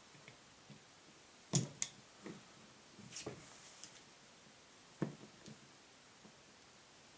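Sharp clicks and taps of small gun parts being handled as the locking block pin is worked into a Glock 26 Gen4's polymer frame. The loudest is a pair of clicks about a second and a half in, with a few more around three and five seconds.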